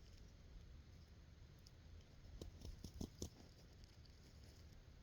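Near silence with a low steady background rumble, broken by a few faint sharp clicks a little past halfway through.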